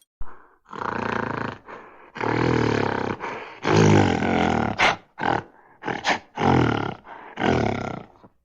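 A sound effect of an animal's low, rough calls: about seven in a row, the first few around a second long, the later ones shorter, with short gaps between them.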